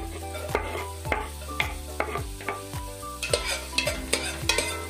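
Chopped garlic sizzling in hot oil in a stainless steel pot as a metal spoon stirs and scrapes it, the sizzle and scraping stronger in the second half. Background music with a steady beat plays throughout.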